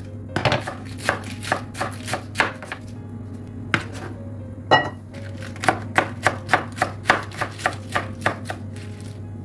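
Knife chopping food on a cutting board in quick, even strokes, about four a second. It comes in two runs separated by a pause with a couple of single cuts.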